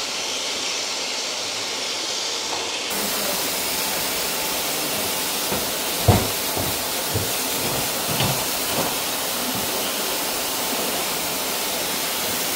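Steady, fairly loud hiss, with a handful of dull thumps in the middle, the loudest about six seconds in.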